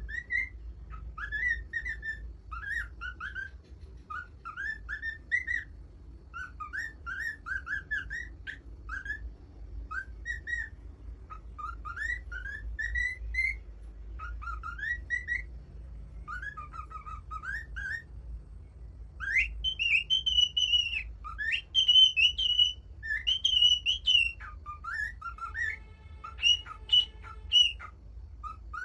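Pet parrot whistling: a long run of short rising whistled notes, then higher, louder whistles about two-thirds of the way through.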